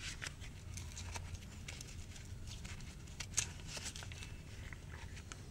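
Faint, scattered small clicks and taps from gloved hands handling a drain plug and its sealing washer, with one sharper click about three and a half seconds in, over a steady low rumble.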